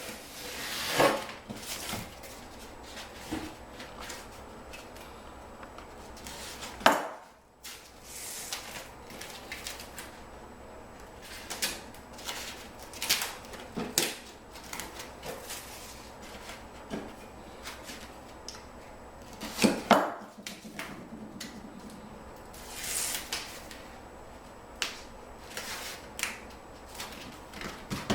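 Intermittent taps, scrapes and rustles of peel-and-stick edge strips being handled and pressed into place on the floor, with two sharper knocks about seven and twenty seconds in.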